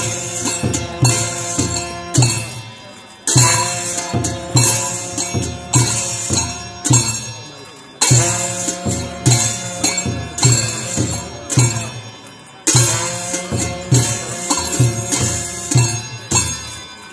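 Traditional Newar dance music: regular drum beats under ringing metallic percussion and held tones, in a phrase that starts afresh with a loud stroke about every four to five seconds.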